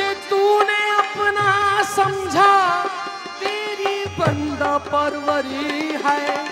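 Live Sufi devotional music: a melody with held notes and sliding ornaments over tabla strokes.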